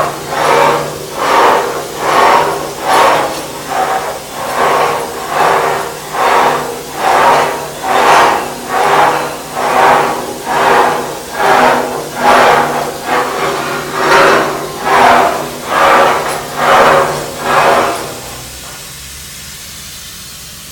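Holmes shoe pipe grinder (pipe reamer) running: a rhythmic rasping stroke about once a second over a steady motor hum. The strokes stop about 18 seconds in, leaving a quieter hum.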